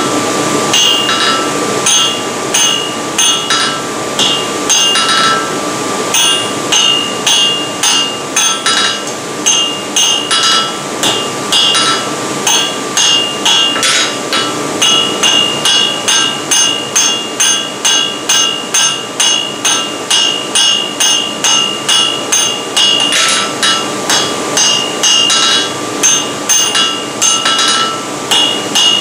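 Blacksmith's hand hammer striking the red-hot end of a steel bar over the sharp edge of a hardy tool, scarfing it for a forge weld. The blows ring, coming a little unevenly with short pauses in the first few seconds and then settling into a steady beat of about two a second.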